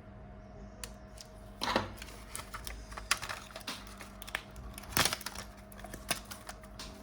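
Scissors and adhesive strips being handled: scattered light clicks and taps, with two louder brief rasping sounds about one and a half and five seconds in.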